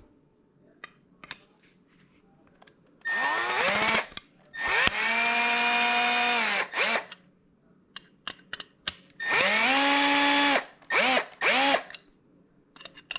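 Power drill run in several short bursts, each whining up to speed, holding briefly and winding down, with small clicks between. It is backing out screws to loosen a garbage disposal's mounting assembly.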